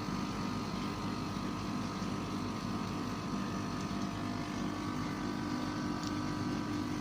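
A motor running steadily, with a constant even-pitched hum over a background hiss.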